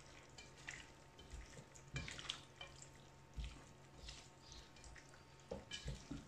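Faint wet stirring: a silicone spatula working chunks of chicken and vegetables through a creamy milk sauce in a stainless steel pan, with soft, irregular squelches and light taps.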